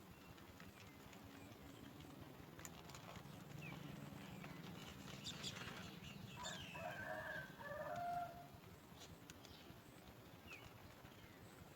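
A rooster crows once, a call of about two seconds starting some six seconds in, over scattered short, faint bird chirps and light clicks.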